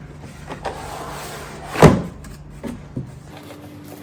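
Cardboard box being opened and handled: a rustling, sliding scrape of cardboard, then one sharp loud thump about two seconds in, followed by two lighter knocks.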